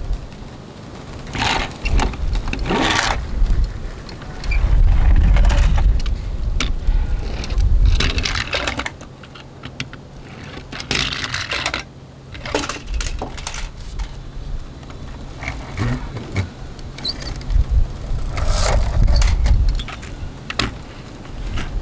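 Small toy cars handled on a wooden tabletop: wheels rumbling as they roll across the boards, with scattered clicks and knocks of plastic and die-cast bodies being set down and bumping together.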